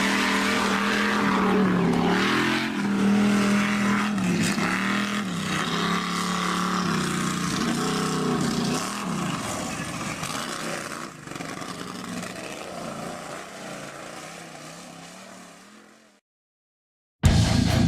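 Monster truck engine sound effect revving up and down in repeated swells, then fading away to silence. Loud rock music with guitar begins right at the end.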